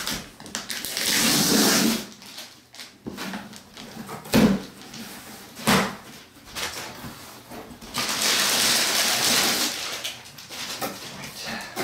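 Cardboard shipping box being opened by hand: two long tearing rips of packing tape, about a second in and again near the end, with two sharp knocks of cardboard in between.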